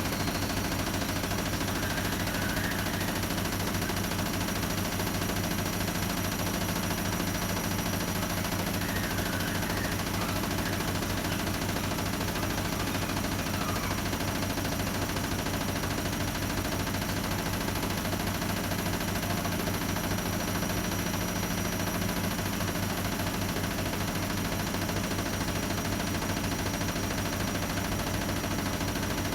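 Hotpoint WMA30 washing machine spinning with an unbalanced load, the drum rattling and knocking rapidly and without a break.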